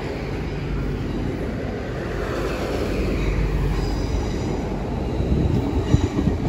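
GWR Class 802 bi-mode train pulling out and passing close by: a steady rumble of wheels on the rails and running gear, growing slightly louder. A faint high whine comes in about four seconds in and again near the end.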